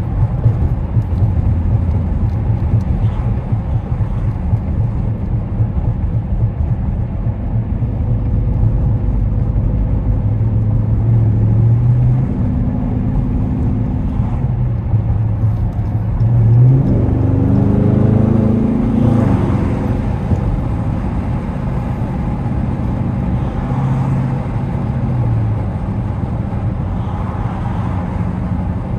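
Dodge Charger SRT's V8 and road noise heard from inside the cabin while cruising. The engine note rises in pitch several times as the car accelerates.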